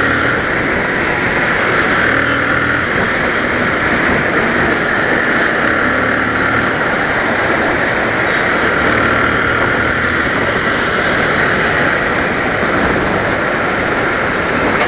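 Motorcycle under way on the road: a steady rush of wind noise with the engine running underneath.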